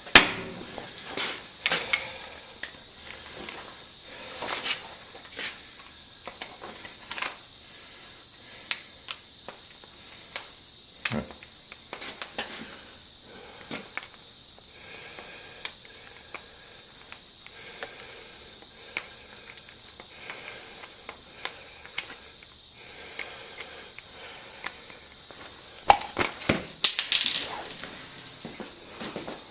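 Scattered sharp clicks and knocks of hand tools working on metal, over a steady faint hiss, with a cluster of louder knocks near the end.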